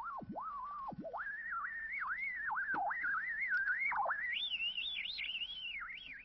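A single pure electronic tone, like a theremin, gliding restlessly up and down in pitch with sudden deep dips. It jumps to a higher register about a second in and climbs higher again about four seconds in.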